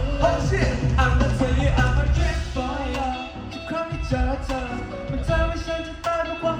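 A pop song played live over a concert PA, with male voices singing over a band with heavy bass; the bass drops back briefly about halfway through, then returns.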